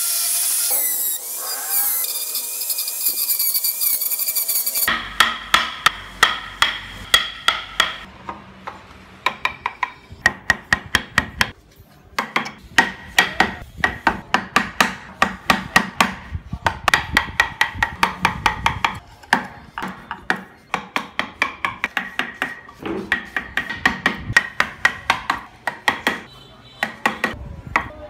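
Angle grinder with a toothed carving disc running against wood for the first five seconds or so. Then a mallet strikes a carving chisel in quick runs of about four blows a second, each blow with a short metallic ring, with brief pauses between the runs.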